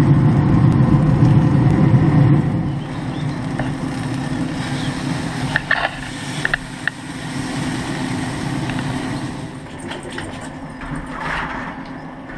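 Traeger pellet grill running with a steady low hum and rumble, loudest in the first couple of seconds. A few short metal clinks about six seconds in, as a fork is worked against the grill grate to lift out a whole roast chicken.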